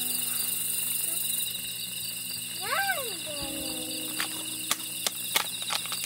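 Night insects, crickets or katydids, trilling steadily at a high pitch. A short voice sound comes about halfway through, and a few sharp clicks come in the second half.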